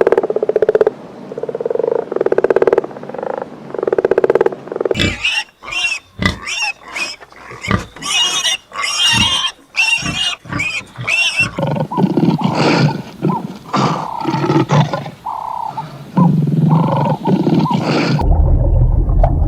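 A string of animal calls from different clips: low, pulsing calls at first, then from about five seconds in a run of many short high-pitched calls, then lower calls again in the second half.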